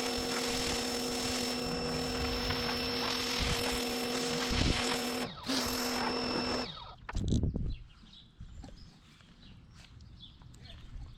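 Pressure washer running, its motor humming steadily under the hiss of the spray, with a short break near the middle; it shuts off a little over halfway through.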